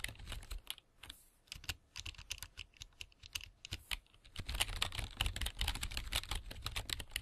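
Computer keyboard typing: a run of quick, irregular key clicks, sparse through the middle and growing dense in the last three seconds.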